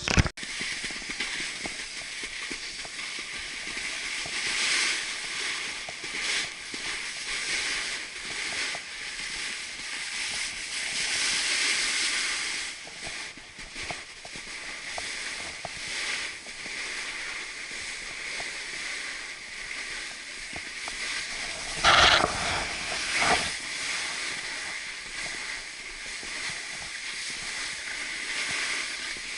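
Snowboard edges and base hissing and scraping over groomed, packed snow, swelling and fading with each turn. Two louder scrapes or thumps come about 22 and 23 seconds in.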